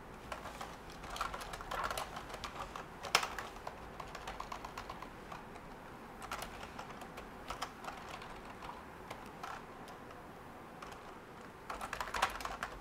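Typing on a computer keyboard: runs of quick key clicks, with one louder keystroke about three seconds in and a short lull before a fresh burst near the end.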